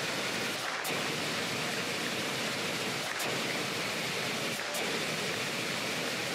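Stage special effects, pyrotechnic spark fountains and CO2 jets, giving a steady rushing hiss, with a few faint sharp ticks.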